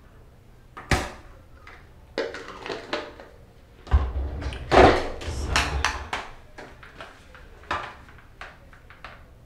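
Handling noises of hair tools and products being picked up and put down: a sharp knock about a second in, clattering and rustling, a heavier bump about four seconds in, then a few light taps toward the end.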